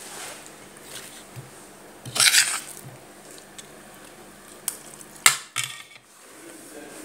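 A loud rustling scrape about two seconds in, then a few light clicks and a sharp clink a little after five seconds, followed by a short scrape: a metal spoon knocking and scraping on a ceramic plate.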